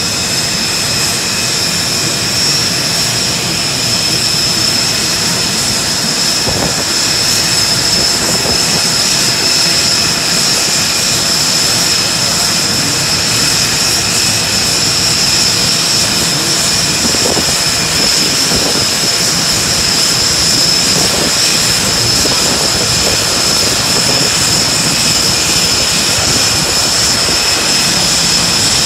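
Aircraft turbine engine running steadily: a loud rushing noise with a high, constant whine over it.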